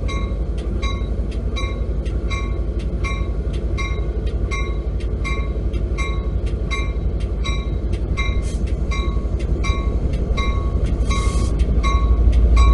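The bell of an Amtrak California EMD F59PHI diesel locomotive rings steadily at about three strikes a second over the low running of its diesel engine. The engine grows louder near the end as the locomotive starts to pull away.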